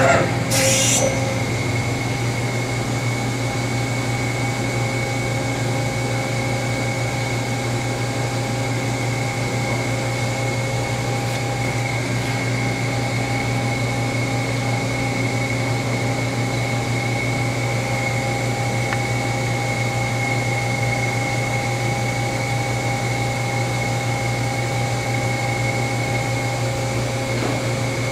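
Doosan Lynx 220LM CNC turning center running a program: a steady machine hum with a constant high whine from the spindle drive, and a brief hiss near the start.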